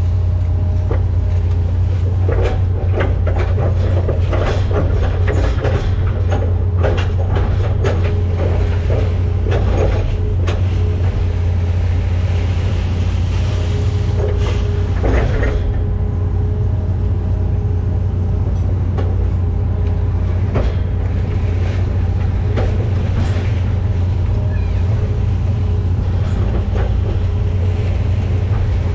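Hitachi ZX210F-5G excavator heard from inside its cab, its diesel engine and hydraulics running steadily as it digs mud from a ditch. A string of knocks and clanks comes in the first ten seconds or so, with another around the middle.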